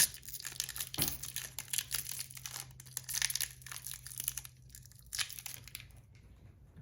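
Plastic candy wrapper crinkling and tearing as a Hi-Chew chew is unwrapped by hand, dense crackles that thin out after about five seconds.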